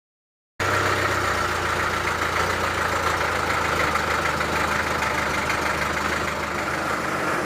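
Sawmill machinery running steadily, an engine hum with a dense whirring over it, starting about half a second in.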